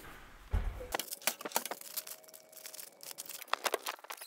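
Irregular small clicks and light knocks of hardware and hand tools being handled while parts are fitted in a car interior, with a faint steady tone for about two seconds in the middle.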